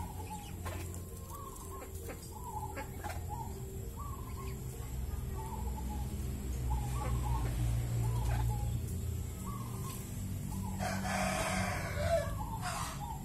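Caged zebra dove (perkutut) with short, faint calls repeating throughout, over a steady low hum. A louder, harsher bird call lasts about a second and a half, about eleven seconds in.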